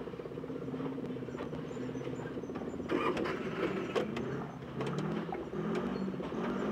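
Banger racing car's engine running at idle, heard from inside the stripped cabin, its note wavering a little in the second half, with a couple of knocks about three and four seconds in.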